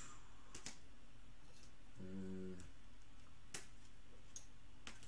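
A few faint, sharp clicks and taps of clear plastic trading-card cases being handled and set into display stands, spaced out over several seconds. A brief hummed tone comes about two seconds in.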